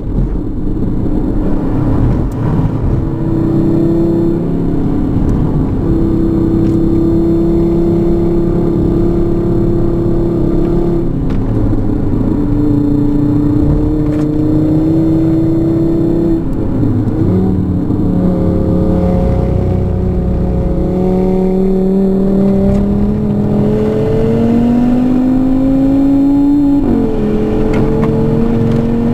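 2018 Audi RS3's turbocharged 2.5-litre inline-five with a Unitronic stage 2 tune, heard from inside the cabin at lapping pace in third gear. Its pitch holds and shifts with the throttle through the corners, then rises under hard acceleration late on, dips sharply for a moment and climbs again.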